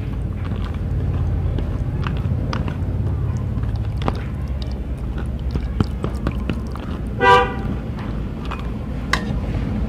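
A steady low rumble with scattered light clicks. About seven seconds in comes one short horn toot, the loudest sound.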